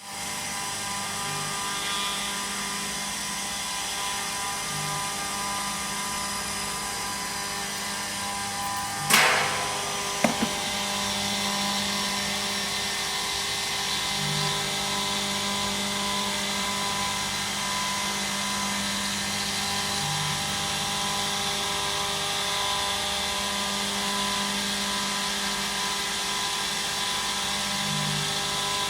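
Bridgeport Boss 10 CNC milling machine with an Ajax CNC retrofit running, a steady whine with several fixed tones from the spindle and axis drives, plausibly while milling a circular pocket. About nine seconds in there is a sharp loud clank with a falling ring, then two smaller knocks a second later.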